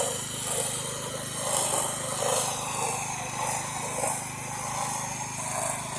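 A 4200 psi, 4 gpm pressure washer's small engine running steadily, with the hiss of the spray wand soaping down vinyl siding.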